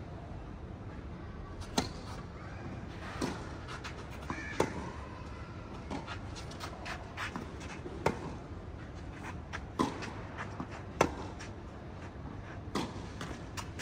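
A series of about seven sharp knocks at uneven intervals of one to three seconds, over a steady low rumble.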